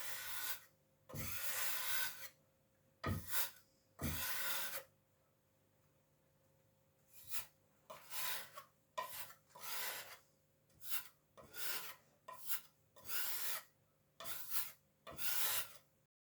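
A putty knife scraping wood filler into nail holes and cracks in a pallet-wood countertop, in short strokes at an uneven pace.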